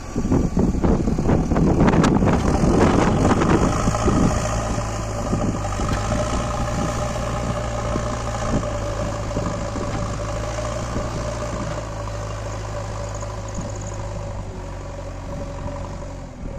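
A JCB backhoe loader's diesel engine running. For about the first four seconds it is loud and rough, with knocks; it then settles into a steady, even run.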